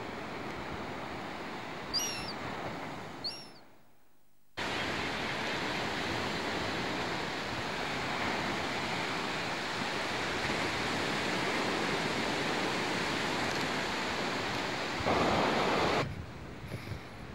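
Ocean surf washing on a beach, a steady rush, with two short high bird calls about two seconds in. The sound drops out for about a second just before the four-second mark, then the surf returns louder, with a louder rush near the end before it falls back.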